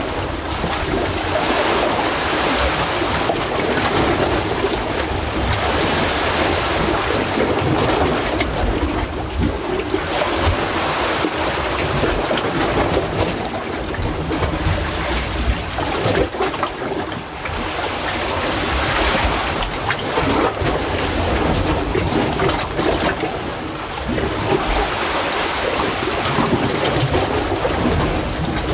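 Seawater surging and churning in a narrow crevice between coral rocks: a steady rush of surf that swells louder every few seconds and eases again.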